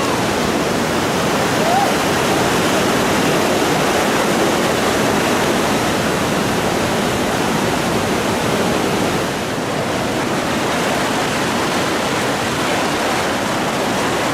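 Whitewater river rapids rushing: a loud, steady wash of water noise that stays even throughout.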